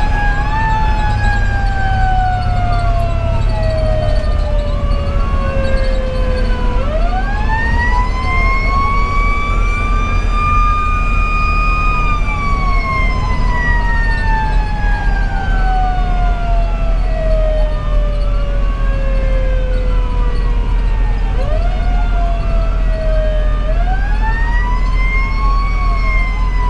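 Fire engine sirens heard from inside the cab. A Federal Q2B mechanical siren winds up twice and slowly coasts down in between. A Code 3 V-Con electronic siren wails up and down every couple of seconds over it. The steady rumble of the truck's Detroit Series 60 diesel runs underneath.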